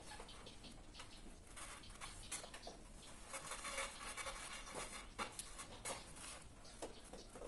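Faint, irregular clicks and scraping of a screwdriver working the terminal screws of miniature circuit breakers in a plastic-fronted distribution board.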